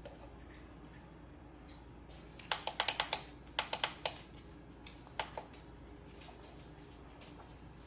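Quick runs of small sharp clicks, like buttons being pressed or keys tapped, in three short bursts: a fast flurry about two and a half seconds in, another about a second later, and a couple more about five seconds in.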